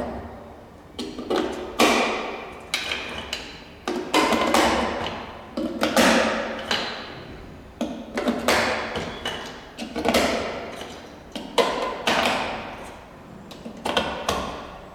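AA batteries being pressed one by one into a plastic eight-cell battery holder: a series of sharp clicks and knocks, about one every two seconds.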